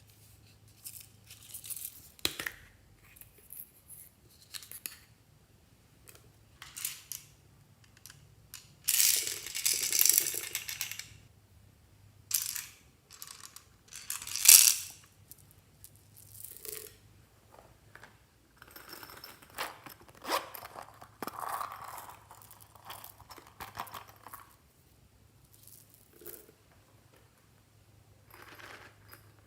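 Fluffy slime being mixed and squished by hand, with irregular wet squishes, crackles and clicks; the longest burst comes about nine seconds in and the sharpest near fifteen seconds.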